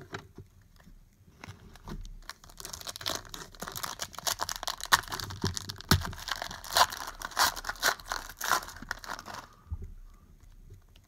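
Trading-card pack wrapper being torn open and crinkled in the hands: a dense crackling that starts a couple of seconds in and stops near the end.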